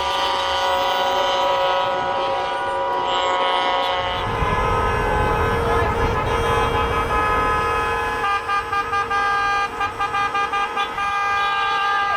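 Many truck and car horns sounding together in a sustained, layered blare, the honking of a protest truck convoy. From about eight seconds in, some horns sound in short rapid blasts, about three a second.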